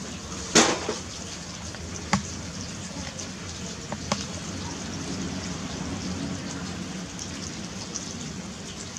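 Steady trickle of rainwater running and dripping after a storm, with a few sharp clicks or taps. The loudest click comes about half a second in and two smaller ones follow about two and four seconds in.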